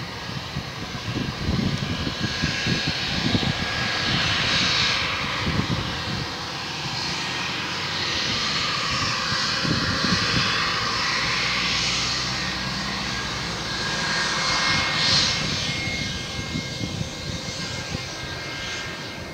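A Boeing 717's twin rear-mounted Rolls-Royce BR715 turbofans running as the airliner rolls away down the runway: a steady jet roar with a faint high whine.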